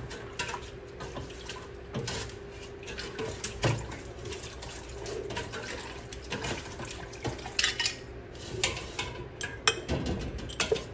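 Glass canning jars clinking and knocking on a wooden cutting board as cucumber slices are packed into them by hand, with a few knocks of a metal pot. Scattered sharp clicks come thicker near the end, over a faint steady hum.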